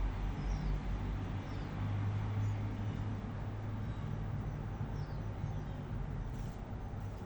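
Steady low rumble and hum of outdoor background noise, with a few faint, short, high chirps from small birds scattered through it.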